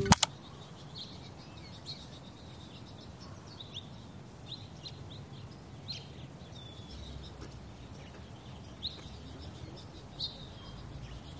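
Small birds chirping and calling now and then in short high notes over a faint low outdoor rumble. A sharp click sounds right at the start.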